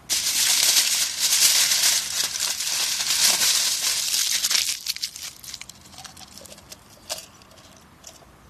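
Aluminum foil crinkling as it is crumpled by hand and pushed into a small plastic pill bottle. The dense crackle is loud for about five seconds, then thins to a few scattered crinkles.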